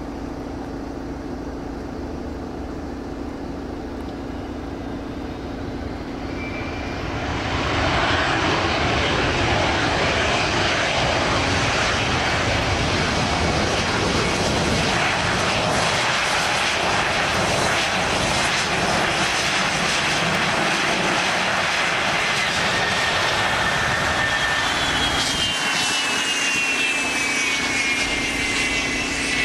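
Turbofan engines of a twin-engine business jet rolling on the runway at high power. The jet noise grows sharply about seven seconds in and stays loud. Near the end a high whine falls steadily in pitch.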